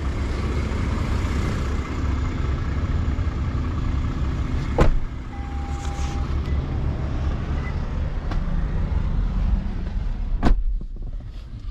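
Lexus LX500d's V6 diesel engine idling with a steady low rumble. Two sharp clicks come about five seconds in and again near the end, and there is a brief faint tone just after the first click.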